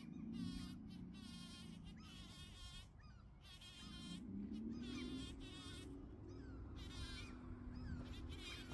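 Bumblebee buzzing as it works a rose flower: a faint low hum that wavers, then rises in pitch about four seconds in and steadies. Repeated short high bird calls sound in the background.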